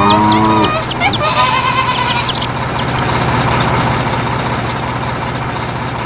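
Birds chirping in quick repeated calls, with a short honk-like tone right at the start, giving way after about two and a half seconds to a steady low rumble with a hum, like a truck engine running.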